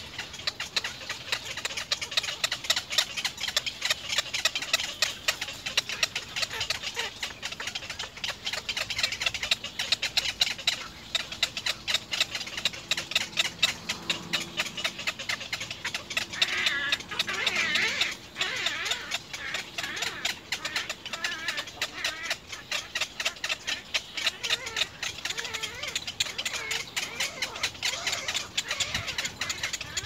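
Little egret chicks making rapid clicking begging calls in the nest: a dense, unbroken chatter of ticks, briefly louder a little past the middle.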